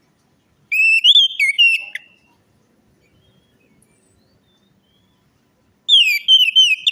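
Orange-headed thrush singing: two loud, rapid whistled song phrases, one about a second in and the next near the end, with a quiet gap between.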